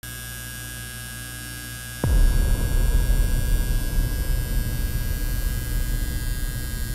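Coil tattoo machine buzzing, a rough low-pitched hum that comes in suddenly and loud about two seconds in, after a quieter steady low hum.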